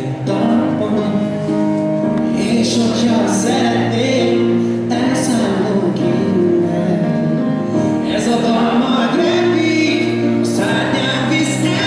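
A choir of young voices singing together in harmony, holding long notes, with the chord changing twice.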